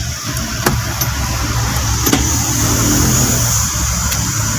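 Kia K2700's diesel engine being started and running, with a few light clicks. It is starting on glow plugs preheated by a newly fitted heater controller, the fix for its hard starting in the morning.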